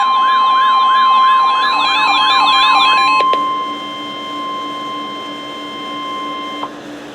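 NOAA Weather Radio's steady 1050 Hz warning alarm tone, the signal that a warning message follows. For the first three seconds a rapidly sweeping electronic alarm, about four sweeps a second, is layered over it and then cuts off suddenly. The steady tone goes on more quietly and stops shortly before the end.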